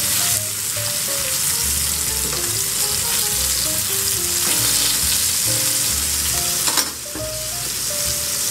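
Ground-beef burger patties frying in plenty of rendered wagyu fat in an iron skillet with a steady sizzle, one sharp knock near the end. Faint electronic background music with a bass beat underneath.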